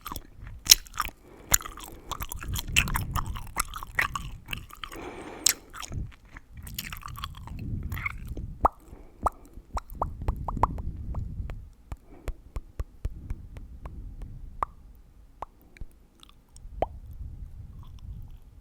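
Gum being chewed, with wet mouth sounds and many sharp crackling pops that come at an irregular pace, sometimes in quick runs.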